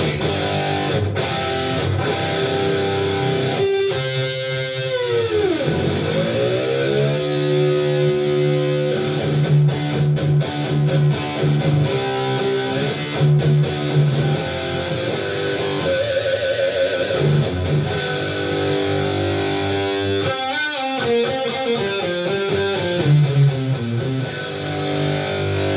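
Kramer Baretta Special electric guitar with a Seymour Duncan Custom bridge pickup, playing sustained chords. About four seconds in, the chord's pitch dives down and comes back up on the Floyd Rose tremolo bar. Later, the pitch wobbles briefly twice.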